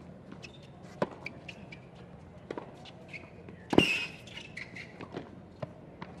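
Tennis ball being bounced and struck on a hard court. A few sharp, separate pops are followed by the loudest crack a little past halfway as the serve is hit, then racket hits of the rally near the end.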